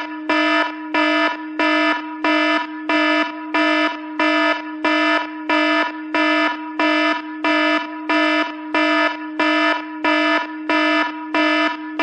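An iPhone stock ringtone: an electronic, buzzer-like tone at one steady pitch, pulsing evenly, a little under twice a second.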